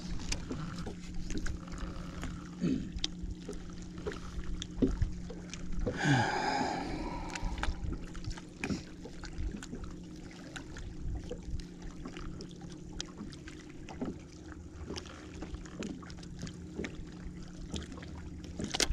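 Small clicks and knocks from a baitcasting reel and its line being handled, over a steady low hum. A brief louder sound comes about six seconds in.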